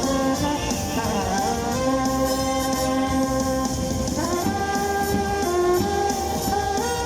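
Live band music: a held, sliding melody line over a dense accompaniment, with notes swooping up into place about a second in, again at about four seconds and near the end.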